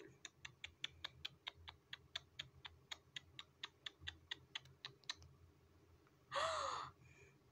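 Faint, quick, even clicking, about five or six clicks a second, stopping after about five seconds. Then a short breathy sigh with a falling pitch about six seconds in.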